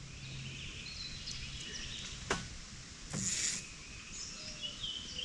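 Birds chirping and calling, many short high notes throughout, with a sharp click about two seconds in and a short rustling hiss just after three seconds.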